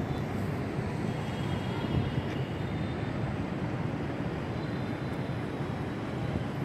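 Steady city traffic noise, an even low rumble with no distinct events.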